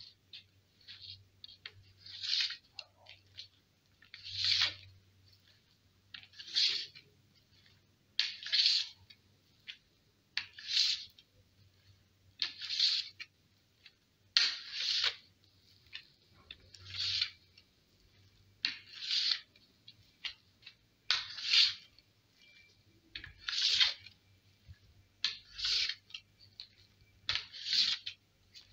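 Fire roll: a cotton roll with green spearmint leaves rubbed hard back and forth under a flat board on a wall top, making a rough, hissing scrape in short bursts about every two seconds. The rolling heats the cotton toward smouldering.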